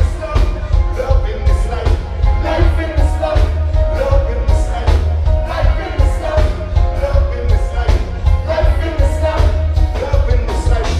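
Live band music played loud over a venue sound system: heavy bass, a steady drumbeat and guitar, with no break.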